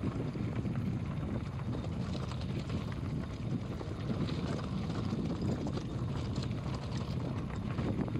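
Wind buffeting the microphone in a steady rumble, over the rough crunching and rattling of mountain bikes riding a rocky trail.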